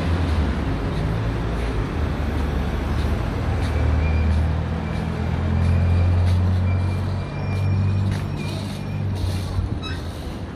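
Street traffic dominated by a heavy vehicle's engine, such as a city bus, running close by with a low rumble that swells about six seconds in. A thin high whine sounds through the middle, with a few light clicks near the end.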